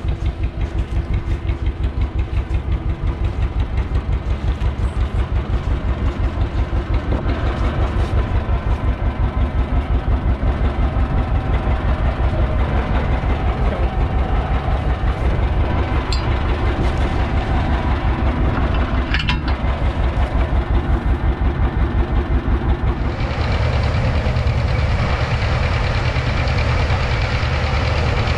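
John Deere two-cylinder tractor engine running with an even, regular putt-putt beat. About three-quarters of the way through the sound changes abruptly to a steadier, fuller engine noise.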